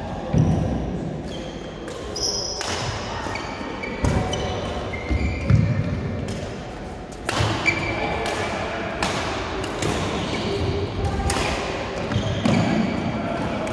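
Badminton rally: rackets strike the shuttlecock sharply about once a second, shoes squeak briefly on the court mat, and feet thud as players move, all echoing in a large sports hall.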